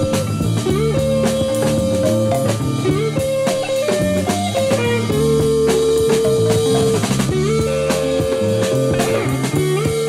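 Rock band playing: a lead line of long held notes, each sliding up into its pitch, over a moving bass line and a drum kit with cymbals.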